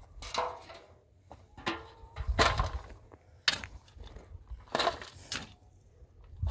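Irregular crunching and rustling of material being handled, about seven separate bursts of varying loudness.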